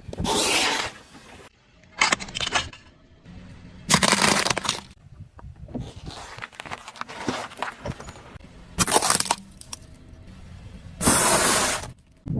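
Crunching and cracking of hard objects being crushed under a car's tyre. It comes in about five loud bursts, with smaller crackles between them.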